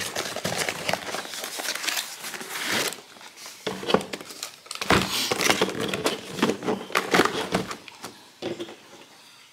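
A subwoofer's cardboard shipping box and its packing being opened by hand: rustling and scraping of cardboard and packing material with sharp clicks and knocks, in two stretches separated by a short pause about three seconds in, tailing off near the end.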